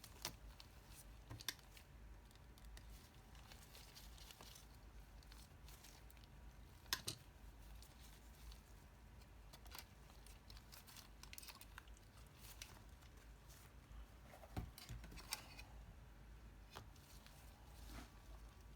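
Faint, scattered clicks and taps of small tools and parts being handled during an e-reader repair, over a quiet background; the sharpest click comes about seven seconds in.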